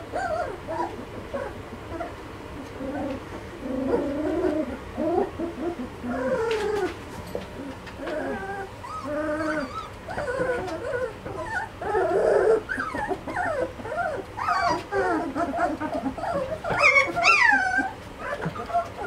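Litter of 2.5-week-old Belgian Malinois puppies making a steady stream of short whines and whimpers, with a louder high cry that falls in pitch about 17 seconds in.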